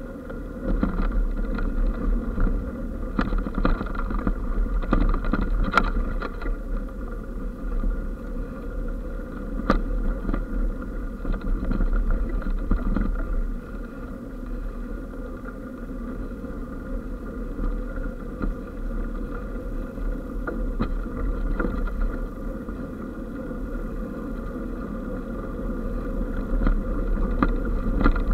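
Tyre rumble and jolting rattles of an eBike ridden over a rough, cracked towpath, picked up by the bike-mounted camera, with a steady low rumble and a faint steady whine underneath. The knocks and rattles are thickest and loudest in the first half, then settle to a smoother rolling noise.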